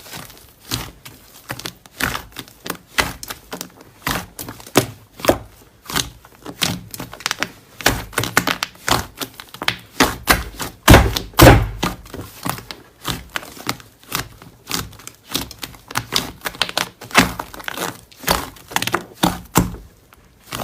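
Slime being pressed and squeezed by hand, making a quick, irregular run of sticky clicks and pops, loudest about eleven seconds in.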